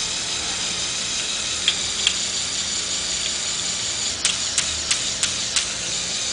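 LEGO Technic logging truck's motorised gearing whirring steadily as the crane arm is raised. Two sharp plastic clicks come about two seconds in, and a run of five clicks, about three a second, comes near the end.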